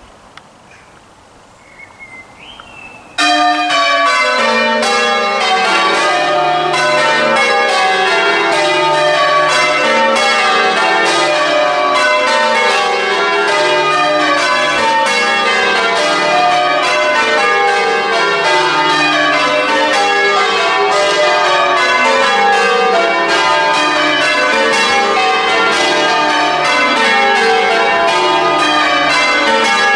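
Church bells change ringing, starting abruptly about three seconds in and then going on without a break. The bells strike one after another in repeating runs that step down in pitch.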